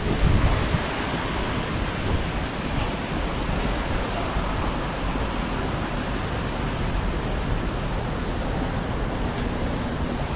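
Steady rushing noise of fountain jets splashing, mixed with wind buffeting the microphone, with a louder gust just after the start.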